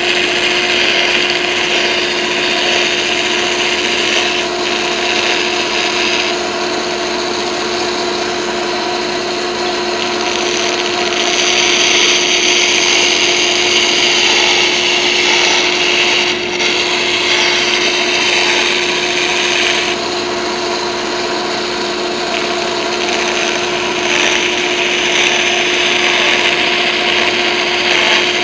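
Band saw running and cutting a curve through a glued-up hardwood cutting board, the blade's cutting noise swelling and easing several times as the board is fed and turned, over the saw's steady hum.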